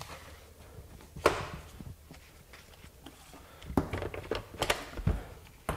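Hard plastic clicks and knocks from hands handling a cordless chainsaw, with one sharp click about a second in and a cluster of knocks near the end; the saw's motor is not running.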